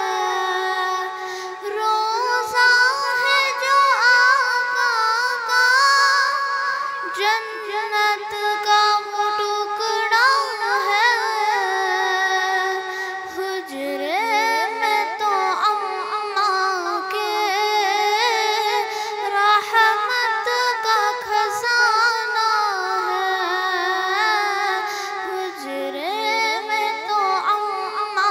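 A girl's solo voice sings a naat, an Urdu devotional poem in praise of the Prophet Muhammad, unaccompanied. She holds long, ornamented, wavering phrases with short breaths between them.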